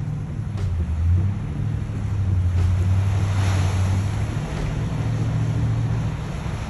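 Truck engine running steadily while driving on soft beach sand, with wind and surf noise over it.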